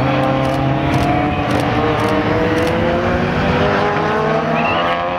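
Several racing saloon cars' engines running hard together on a race track, their overlapping engine notes slowly rising in pitch as they accelerate.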